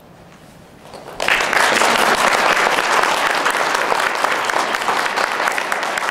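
Audience applauding, breaking out suddenly about a second in and going on steadily, easing only slightly toward the end.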